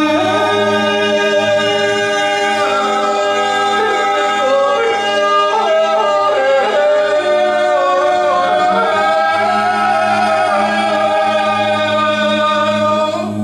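Three voices, two men and a woman, improvising wordless vocal music together. Long held notes slide and weave over a steady low drone.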